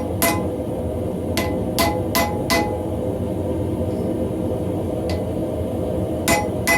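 Hand-hammer blows on steel at the anvil while forging an axe's wrapped eye, each strike with a short metallic ring. There is one strike at the start, a quick run of four about a second and a half in, a faint tap later and two more near the end, over a steady low rumble.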